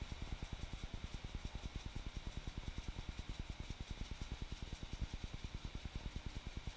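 A motor or engine running, with an even, rapid low pulse of about ten beats a second and a steady hiss above it.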